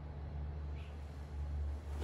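Quiet room tone with a steady low hum and no distinct event.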